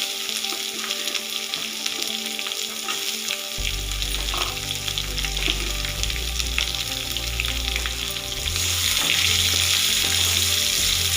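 Chopped onion and fried Maggi noodles sizzling in hot oil in a pan, with background music under it; a bass line comes in about a third of the way through.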